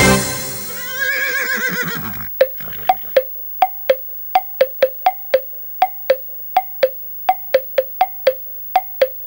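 Music ends, followed by a horse whinny sound effect with a wavering pitch. From about two seconds in comes a steady hollow clip-clop of hooves, about three clicks a second.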